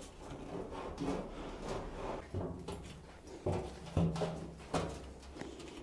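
A sheet-metal stovepipe being worked into a hole in a steel drum, giving scattered knocks and scrapes, with the loudest knocks about three and a half and four seconds in.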